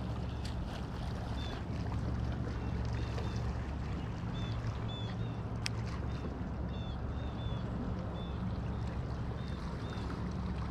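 Steady low drone of a motorboat engine running out on the lake, with short high chirps scattered over it.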